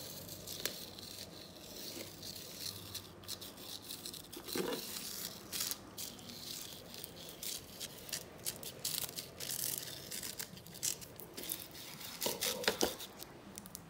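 Fingers rubbing and pressing coloured sand onto a sticky sand-art picture sheet: scattered light scratching and rustling with many small clicks, and the sheet shifted across the table near the end.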